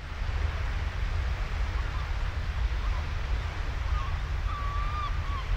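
Steady wind and water noise with birds calling over it: scattered short calls from about two seconds in, one longer drawn-out call a little before the end, then a quick run of repeated calls.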